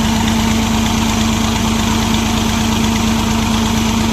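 New Holland tractor's diesel engine running steadily under a constant load, with a strong steady hum and a fast, even pulse, as it drives the tubewell pump.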